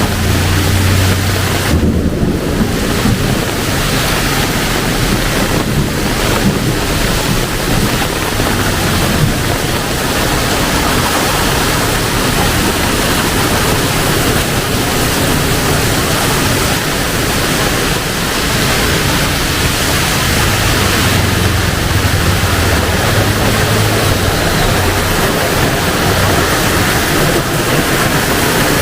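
Heavy rain pouring down in a steady, dense hiss. A low rumble rises under it near the start and again about two-thirds of the way through.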